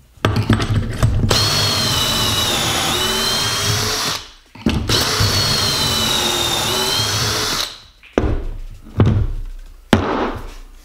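Cordless drill with the Kreg stepped pocket-hole bit boring two angled pocket holes into a 2x4 through the Kreg Jig K4: two steady runs of about four and three seconds, with a high whine that dips as the bit bites. A few short knocks follow near the end.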